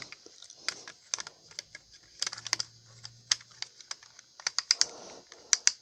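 Light plastic clicks of a spinning-top launcher being wound up by hand, irregular, some in quick little clusters.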